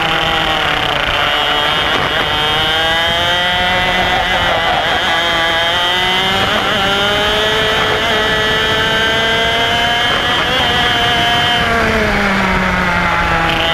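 IAME X30 125cc single-cylinder two-stroke kart engine racing at full load. Its revs are low near the start, climb steadily for about eight seconds as it accelerates, then drop away again near the end.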